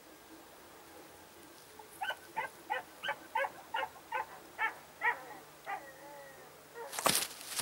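A dog giving a quick run of about ten short, high yips, about three a second, then a falling whine. A short burst of rustling noise comes near the end.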